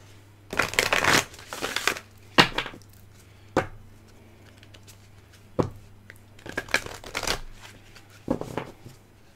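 Oracle card deck shuffled by hand: a run of card rustling for about a second and a half near the start, then sharp single snaps of the cards and shorter shuffling bursts. A faint steady low hum lies underneath.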